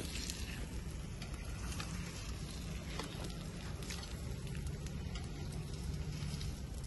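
Light crackling and hissing of a wood fire under an iron tawa with a paratha cooking on it, scattered small pops over a steady hiss and low rumble.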